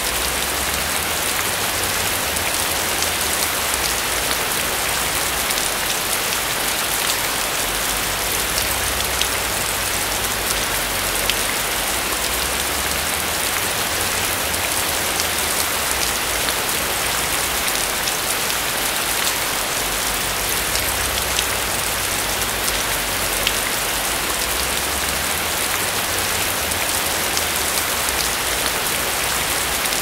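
Steady heavy rain: a dense hiss full of small drop ticks, over a low rumble that swells and eases every few seconds.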